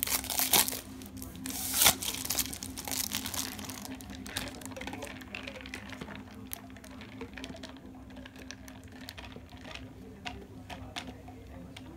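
Thin plastic carry bag crinkling and rustling around a bubble tea cup as it is handled and unwrapped. The crackles are loudest in the first two seconds, with a sharp peak about two seconds in, then thin out to lighter scattered rustles and taps.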